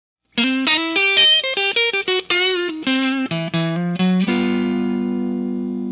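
Intro music: a short guitar riff of quick plucked notes, ending about four seconds in on a held chord that rings on and slowly fades.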